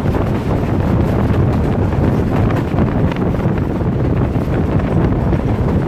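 Wind buffeting the microphone at the open window of a fast-moving passenger train, over the steady running noise of the train on the track.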